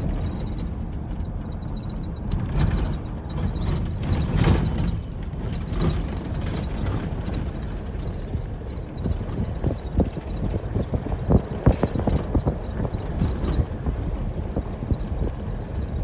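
Car driving on a rough dirt road, heard from inside the cabin: a steady low rumble with repeated knocks and rattles from the bumps, and a brief high-pitched squeal about four seconds in.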